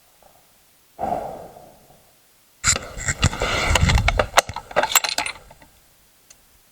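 A sudden thud about a second in that fades over about a second, then a run of sharp metallic clicks and clinks lasting a few seconds, from the bolt of a Remington .270 bolt-action rifle being worked and the rifle being handled.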